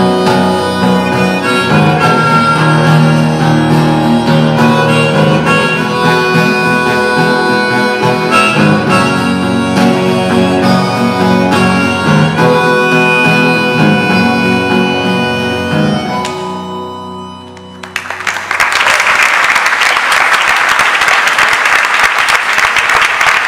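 Acoustic guitar and harmonica playing the instrumental close of a song, dying away about sixteen seconds in. An audience then breaks into applause near the end.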